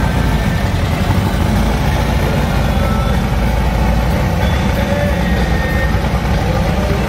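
Engines of slowly passing vehicles running, a steady low rumble.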